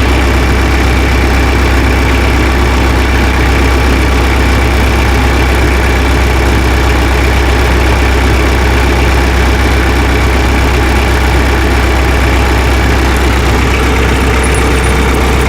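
Tractor engine idling steadily with a deep, even hum.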